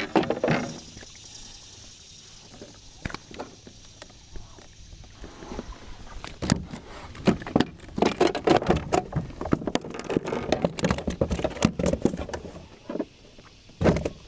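A small bass being landed into a plastic fishing kayak: scattered knocks at first, then from about halfway a dense, irregular run of sharp knocks and splashy clatter as the fish thrashes against the hull and deck.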